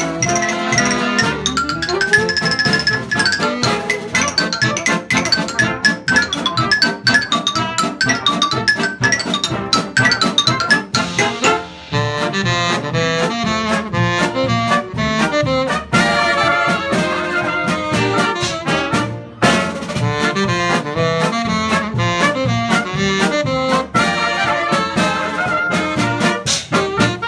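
Hot dance-band jazz played live, with cornets, trombone and saxophones carrying the tune together. There are two short breaks in the music, about twelve and nineteen seconds in.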